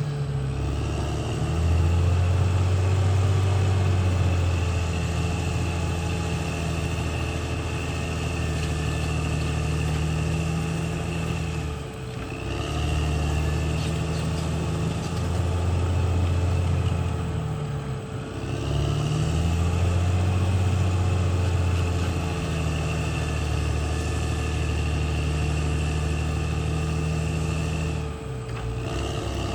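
A CAT D6R XL bulldozer's diesel engine working under load. Its revs dip briefly and recover three times, under a steady high whine.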